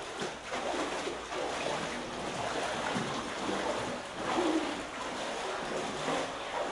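Floodwater covering a room's floor sloshing and splashing as several people wade through it, an irregular, continuous swishing.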